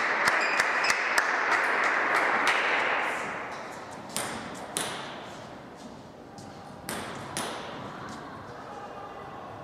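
Table tennis ball bouncing: sharp pings in two pairs, each about half a second apart. Before them, in the first three seconds, a louder stretch of hall noise with many quick clicks fades out.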